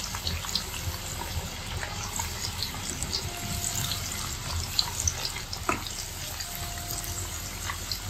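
Breadcrumb-coated chicken pieces deep-frying in hot oil in a kadai: a steady sizzle with scattered small pops and crackles, and one sharper click a little past halfway.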